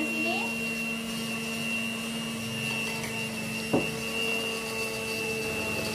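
Electric hand mixer running at a steady speed, its beaters whipping sponge-cake batter in a bowl. One sharp knock comes about two-thirds of the way through.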